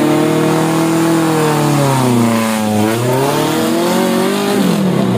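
Suzuki four-wheel drive's engine revving hard under load as it climbs a muddy bank with the wheels spinning. The revs hold high, dip about halfway through, climb again, then drop near the end.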